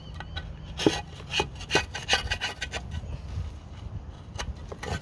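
Metal rod scraping and raking caked diesel soot out of the aluminium intake manifold of a 2010 Mitsubishi Pajero, in a run of short, irregular strokes. The soot is a thick build-up of EGR exhaust soot mixed with oil vapour, choking the manifold runners.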